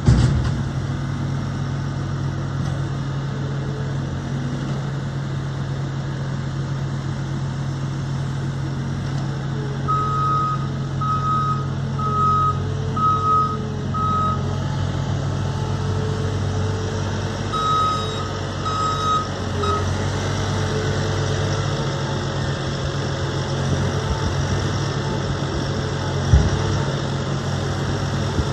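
A heavy vehicle's engine running steadily, with its reversing alarm beeping about once a second, five beeps, a pause, then three more. A single short thud sounds near the end.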